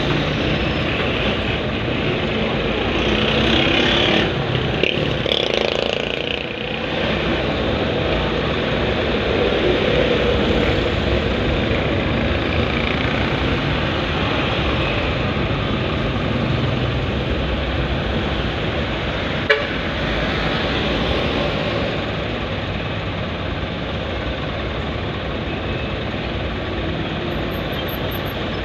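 Steady road-traffic and engine noise heard from inside a vehicle in slow, congested traffic. A single sharp click comes about two-thirds of the way through.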